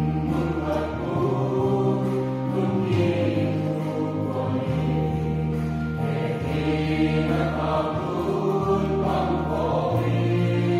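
Mixed choir singing a hymn over a steady accompaniment whose sustained bass notes change every couple of seconds.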